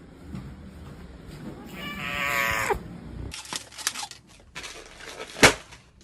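A cat's drawn-out, wavering meow about two seconds in. Later come a few light clicks and a single sharp knock, the loudest sound, near the end.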